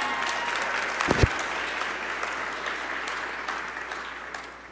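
Large audience applauding, dying away near the end, with a single dull thump about a second in.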